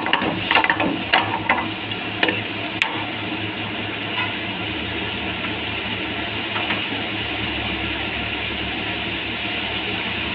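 Steady hiss and low hum of a working kitchen while gravy cooks on the stove, with a few short clicks of utensils in the first three seconds, the sharpest near three seconds in.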